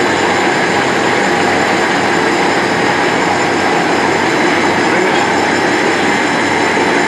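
IMC-25 high-speed hydraulic thread rolling machine running: a loud, steady mechanical din from its motor, hydraulic unit and rolling dies.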